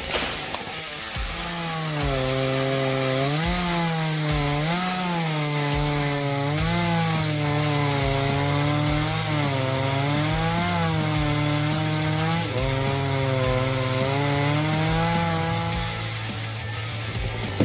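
Chainsaw cutting wood: the engine runs at high speed, its pitch dipping and recovering every second or two as the chain loads in the cut.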